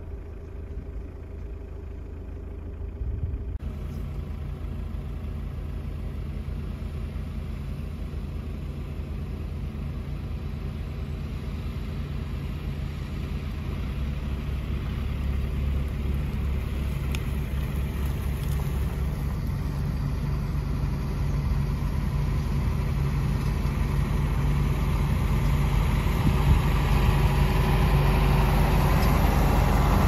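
Fendt 720 Vario tractor's six-cylinder diesel engine running under load while pulling a reversible plough. It is a steady low drone that grows steadily louder as the tractor draws near.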